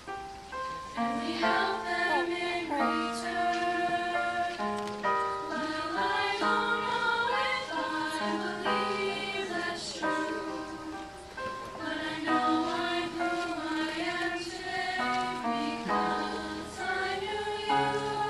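High school choir singing in parts, in long held chords.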